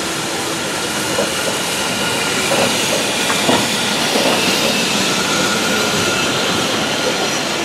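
BR Standard Class 4 2-6-0 steam locomotive 76079 and its coaches running past close by: a steady noise of wheels on the rails, a little louder about three seconds in as the engine goes by.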